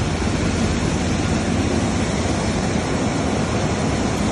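Seed cleaning machine running steadily: a continuous rushing noise over a low hum, with sesame seed streaming through it.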